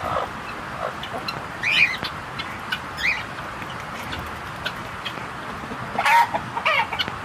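Caged hens clucking: short calls about two and three seconds in, then a louder run of calls about six seconds in.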